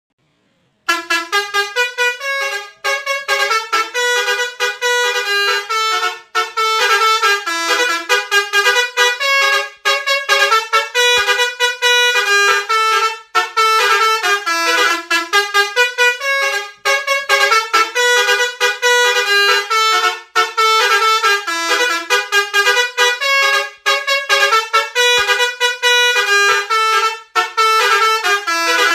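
Indonesian 'telolet' multi-tone bus horn playing a fast tune of short notes that jump in pitch several times a second, starting about a second in and running on with a few brief breaks.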